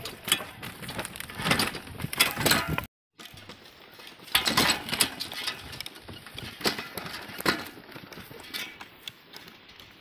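Wooden bullock cart drawn by a pair of oxen jolting over a rough dirt track: irregular knocks, rattles and crunches from the cart's wooden frame and wheels.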